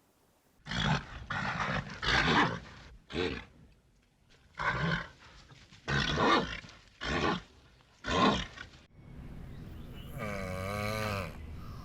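A large animal's harsh, roar-like calls: about eight short rough calls in quick series, then one longer pitched call that wavers and falls near the end.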